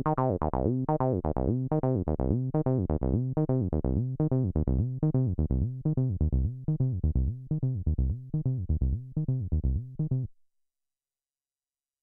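Cyclone Analogic TT-303 Bass Bot V2, a TB-303 clone bass synthesizer, playing a sequenced acid bassline of short plucked notes at about four a second. Its filter cutoff is swept down so the notes grow duller and darker. The pattern stops abruptly about ten seconds in.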